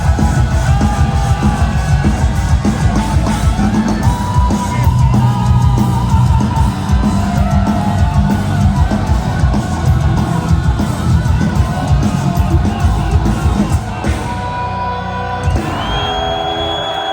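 Live heavy metal band, with electric lead guitar bending notes over distorted rhythm guitar, bass and drums, and some crowd yelling. About fourteen seconds in the drums and bass drop away, and a high guitar note is held with vibrato near the end.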